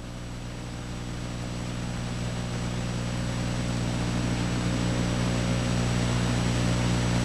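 Engine of a heavy wheeled road machine working the shoulder, running at a steady speed with an even low drone that grows gradually louder.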